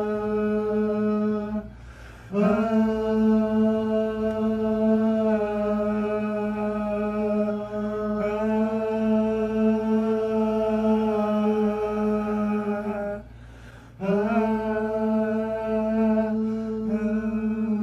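A man's voice singing one long, steady note, held for many seconds at a time and broken by two short breaths, about two seconds in and about thirteen seconds in.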